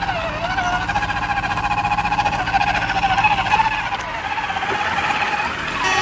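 Yellow toy mobile crane truck giving a whining, motor-like sound whose pitch wavers up and down, over a steady low hum.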